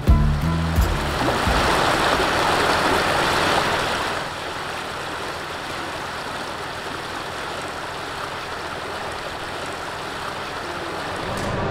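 Creek water running over rock: a steady rushing, louder for the first four seconds or so, then softer and even.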